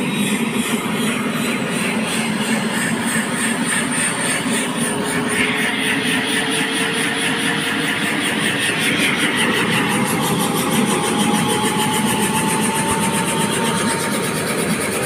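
Helicopter engine running steadily, with whining tones that slowly rise in pitch, during an air-conditioning gas charge.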